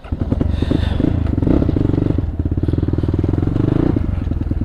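Motorcycle engine cutting in suddenly and then running steadily at idle, with a rapid, even firing beat.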